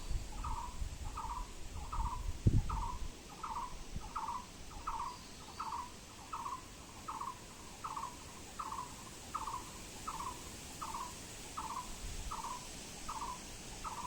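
A bird calling one short note over and over at an even pace, about three notes every two seconds. A brief low rumble comes about two and a half seconds in.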